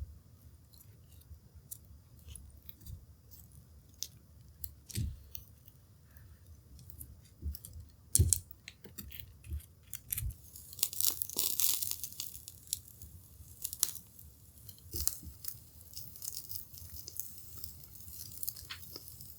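Charcoal burning in a hibachi, crackling with scattered sharp pops and clicks, and a stretch of sizzling hiss from the grilling atsuage (thick fried tofu) a little past the middle.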